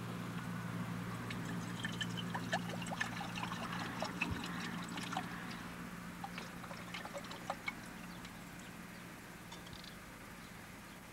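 Water poured from a plastic water carrier into a small metal pan, splashing and trickling, dying away about eight seconds in.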